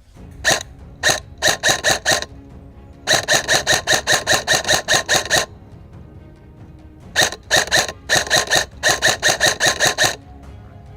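Airsoft rifle firing: a few single shots, then two fast strings of shots at about six a second, over background music.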